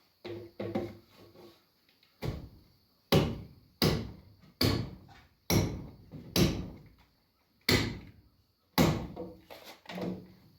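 Hammer blows on wooden framing lumber: a dozen or so heavy knocks, roughly a second apart, starting lighter and getting louder from about two seconds in.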